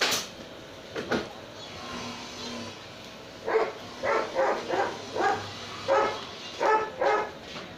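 A dog barking in a quick run of about eight barks in the second half, after a couple of sharp cracks in the first second or so.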